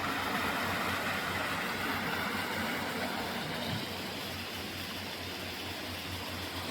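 Small waterfall on a trout stream, water rushing steadily, with a low rumble underneath.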